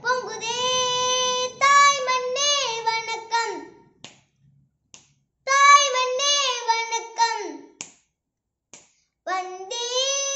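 A boy singing a Tamil patriotic song unaccompanied, in short phrases broken by pauses, the last phrase ending on a long held note.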